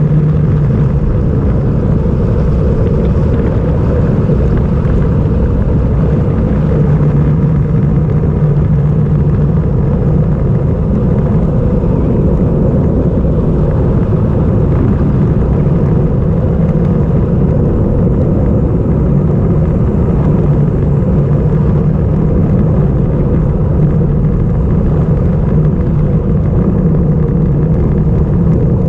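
Wind rushing over a bike-mounted GoPro's microphone on a fast road-bike descent: a loud, steady rumble.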